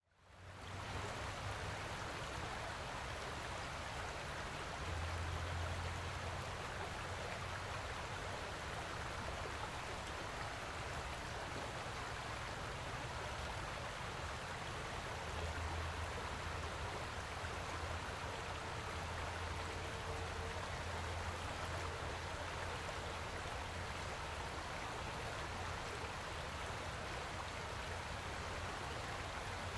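Steady rushing of circulating aquarium water, with a low pump hum underneath that swells for a few seconds at a time.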